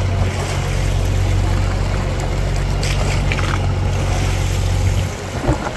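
Fishing boat's engine running steadily, with wind and choppy sea washing around the hull. The engine hum briefly drops about five seconds in.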